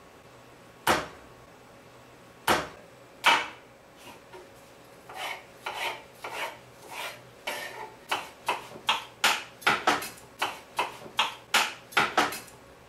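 Kitchen knife cutting a peach on a wooden cutting board. A few separate sharp knocks come first, then softer cutting sounds, then from about two-thirds in a fast run of chopping knocks, about three a second and speeding up near the end.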